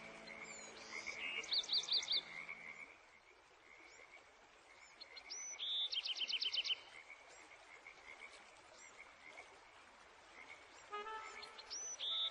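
Forest animal ambience: a steady high drone, broken three times by short bursts of rapid pulsed calls a few seconds apart. A low sustained music drone fades out in the first few seconds.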